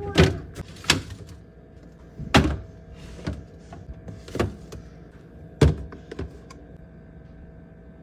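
Food storage containers being set down and shifted on a refrigerator's glass shelf: a string of seven or so sharp knocks and clacks over the first six seconds, then only a faint steady tone.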